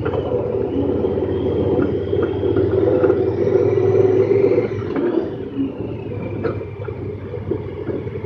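Honda Pioneer 1000-5 side-by-side's engine running as it drives along a dirt trail, heard from inside the open cab, with a few short rattles. It pulls a little harder for a few seconds, then eases off about five seconds in.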